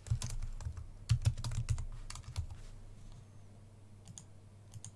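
Computer keyboard typing: a quick run of keystrokes over the first two seconds or so, then a few single clicks near the end.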